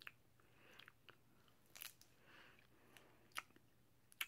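Faint crunching of a piece of hard stick candy being chewed, with a few short, sharp cracks scattered through it, the loudest near the end.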